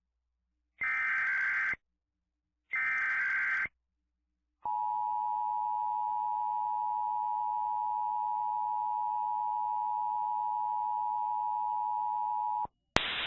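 Emergency Alert System alert: the last two of three screechy SAME digital header bursts, about a second each, then the EAS attention signal, a steady two-tone 853/960 Hz alarm held for about eight seconds that cuts off abruptly. A click and a hiss of static come right at the end.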